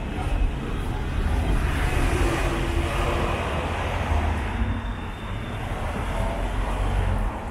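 Street traffic noise: a passing vehicle's sound swells and fades over a few seconds, over a steady low rumble.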